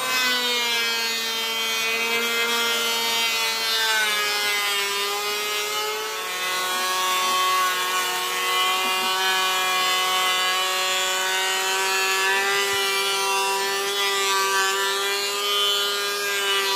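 Jemar benchtop thickness planer running and planing a wooden board: a steady high whine over a dense hiss of cutting. The whine dips slightly in pitch about five seconds in and then holds steady.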